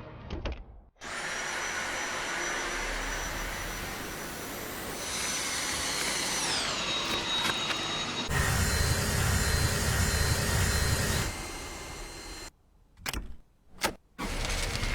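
Dyson V8 Absolute cordless stick vacuum running: a high-pitched motor whine over the rush of suction, its pitch gliding down partway through. Then comes a louder run with a deeper rumble, and near the end it drops out twice, with short bursts between.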